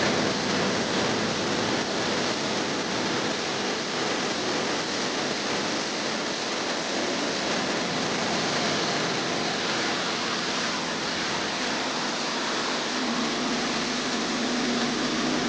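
Pressure washer spraying water steadily against a car's body, an even, continuous hiss.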